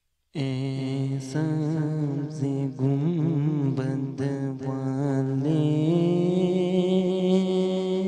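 A man singing a slow devotional melody without accompaniment, into a handheld wireless microphone played through an Audionic Mehfil MH-30 portable speaker. The voice comes in suddenly just after the start with ornamented, wavering notes, then holds one long steady note through the second half.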